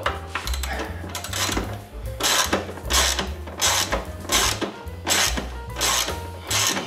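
Socket ratchet wrench being cranked in short strokes to tighten a bolt on a motorcycle muffler mounting. A burst of ratchet clicking comes regularly, about every three-quarters of a second from about two seconds in.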